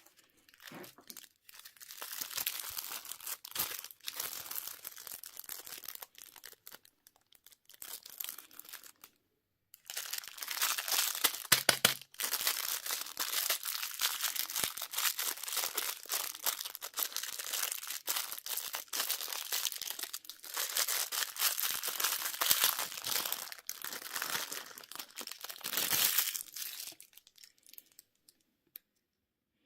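Candy wrappers being torn open and crinkled by hand, in long stretches of rustling with a short pause about ten seconds in.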